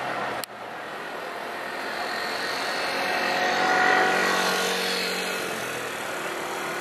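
Rigid inflatable boat speeding past under engine power: the engine drone and rush of water rise to a peak about four seconds in, then fade as it pulls away. A sharp click with a brief dropout about half a second in.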